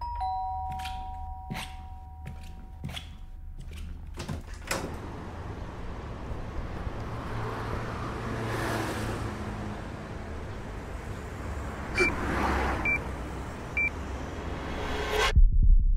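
A two-tone ding-dong doorbell chime rings at the start, with a few sharp clicks and knocks of a door being opened. Steady outdoor background noise follows. Near the end come three short high electronic beeps about a second apart, a bomb's countdown timer, and then loud music starts abruptly.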